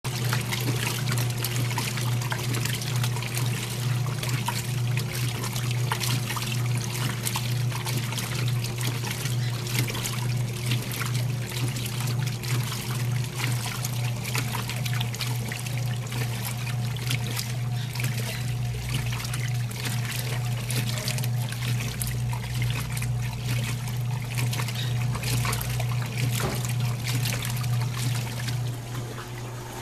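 Washing machines running: a Mueller Belíssima washing and a Consul Jasmim spinning a load of bedding and towels, with a steady motor hum under water trickling and splashing. Low rumbling swells come and go in the second half.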